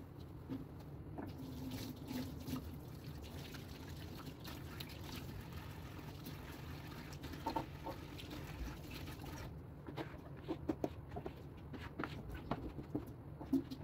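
Kitchen tap running into a stainless steel sink while the sink and a utensil are rinsed. The water stops about two-thirds of the way through, followed by a few light clicks and knocks of things being handled.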